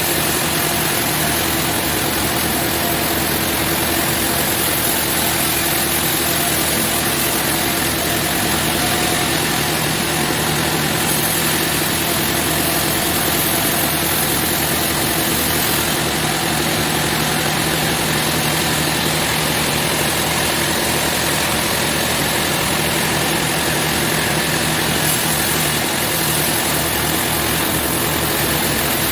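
Sawmill machinery running steadily, a constant engine-like hum with no breaks or changes in pitch.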